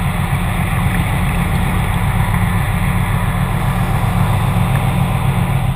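Steady low machinery hum recorded underwater beside a ship's hull and propeller, with an even rushing noise over it.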